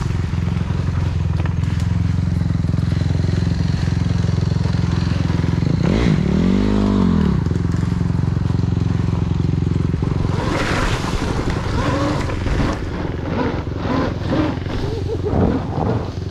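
Dirt bike engine running while riding, with the revs rising and falling once about six seconds in. From about ten seconds in the sound turns choppier, with short uneven bursts.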